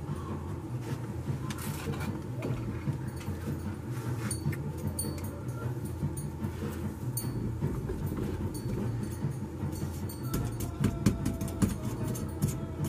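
A steady low mechanical hum, with scattered light clicks of steel pliers on metal as a freshly cast silver piece is handled.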